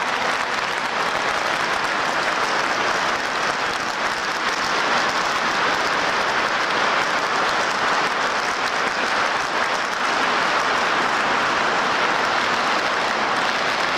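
Large stadium crowd applauding, a dense steady noise with no break.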